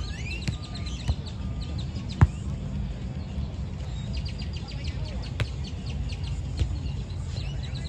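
A volleyball being hit a few times during a beach volleyball rally, the sharpest hit about two seconds in. Birds chirp in quick runs, and a steady low rumble sits underneath.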